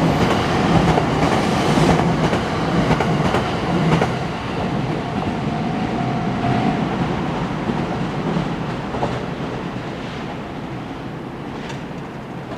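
285 series Sunrise Express sleeper electric train running past, its wheels clicking over the rail joints. The sound fades steadily as the train draws away.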